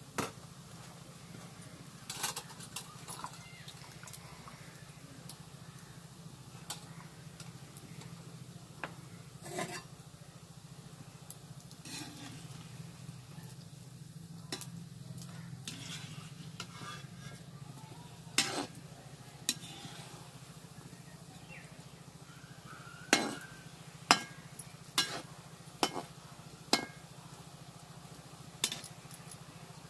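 Pakoda fritters frying in oil in a metal kadhai with a light sizzle, while a metal spatula scrapes and knocks against the pan as they are turned. A quick run of sharp knocks comes about three-quarters of the way through.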